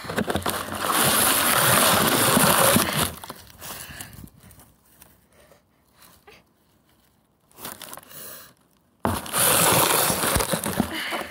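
Dry grass and dead leaves crackling and rustling close to the microphone as hands move through them, in two loud spells: the first about three seconds long at the start, the second beginning about nine seconds in, with faint scattered crackles between.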